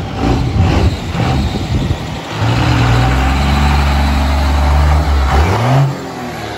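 Diesel pickup truck engine running, which a bystander takes for a 24-valve Cummins. It is held at steady revs for about three seconds, then rises briefly and cuts off about six seconds in.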